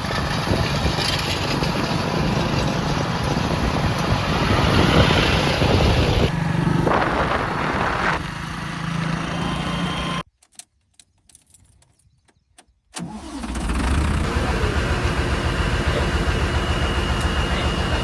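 Heavy diesel machinery engines running steadily, broken by a sudden drop to near silence for about two and a half seconds before the engine noise comes back.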